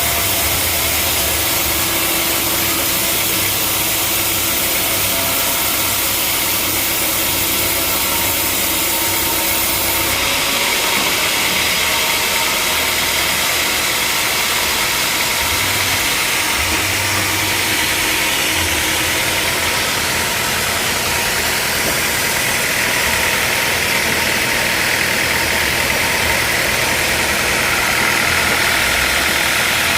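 Sawmill machinery running steadily: an engine hum under a loud, hissing saw noise. The sound changes abruptly about ten seconds in.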